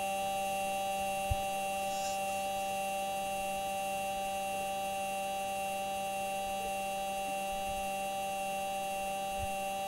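NASA's Perseverance rover microphone recording of the rover driving on Mars, played back: a steady hum-and-whine of several held tones, with a faint tap about a second in.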